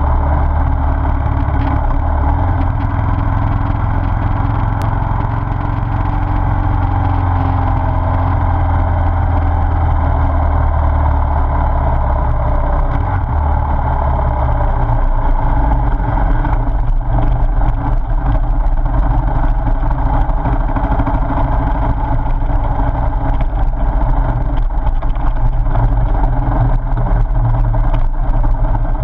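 Motorcycle engine running under way with steady wind noise. About halfway through the low drone gives way to a rougher sound with many small knocks and rattles as the bike rides onto gravel.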